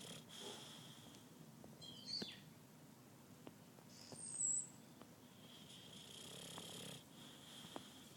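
Young Boxer dog snoring in its sleep: slow, breathy snores with a hissy edge. It is broken by a short high squeak about two seconds in and a louder, brief high squeak about four seconds in.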